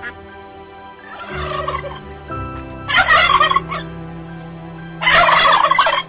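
Domestic turkey gobbling three times, each a rapid warbling gobble just under a second long; the first is quieter, the second and third loud.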